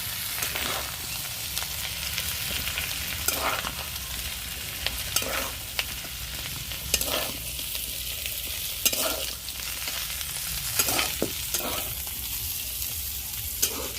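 Pieces of raw jackfruit sizzling in hot oil in a pan, with a spatula scraping and stirring through them every second or two as they finish frying.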